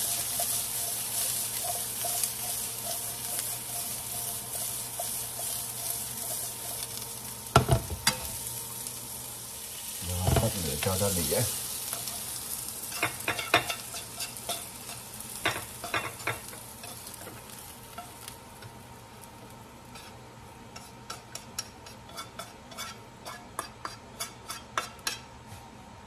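Green beans and garlic sizzling in hot oil in a nonstick frying pan as they are stir-fried, the sizzle fading away over the first two thirds. A sharp knock comes about eight seconds in and a clatter of the pan a couple of seconds later. Scattered light clicks follow, growing thicker near the end.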